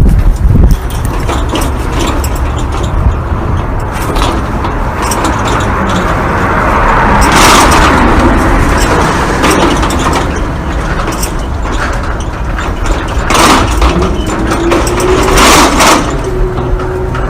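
Metal gate being worked, rattling with repeated knocks and clanks and three louder clashes. A thin squeal from its hinges comes in near the end.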